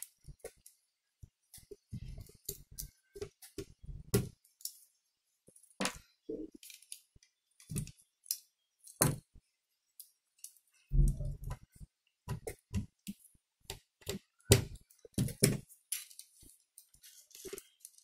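Laptop parts being handled and fitted back together during reassembly: irregular small clicks, taps and knocks of plastic and metal, with a heavier thump about eleven seconds in.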